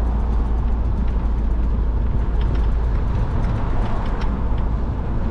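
Steady low rumble of a car on the move, engine and road noise heard from inside the car.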